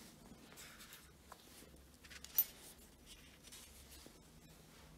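A small steel nut set down on a steel worktable, giving one sharp metallic clink about two and a half seconds in, amid faint rubbing and handling noise.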